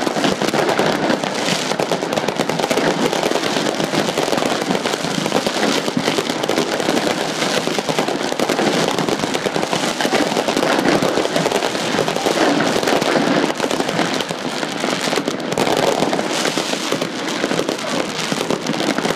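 Fireworks going off in rapid succession: a dense, unbroken crackling of many small bursts and pops.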